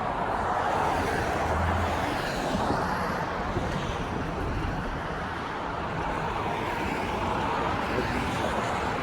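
Steady road traffic noise from cars going by.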